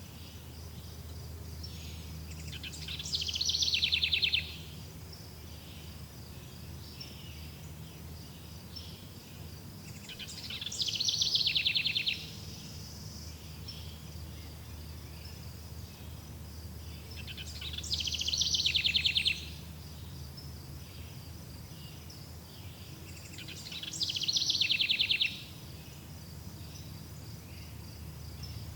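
Forest ambience: a bird sings the same loud, fast trilled phrase four times, about every seven seconds, each lasting a second or two, swelling and then stopping abruptly. A steady high pulsing insect buzz and a low rumble run underneath.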